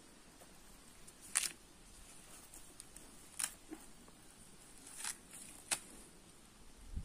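Green husks being torn off fresh ears of corn by hand: four short, sharp rips spread over a few seconds, the last two close together.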